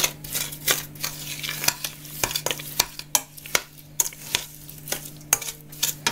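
A spoon stirring a thick butter, sugar and egg mixture in a stainless steel pot, with irregular clicks and scrapes of the spoon against the pot, a few a second.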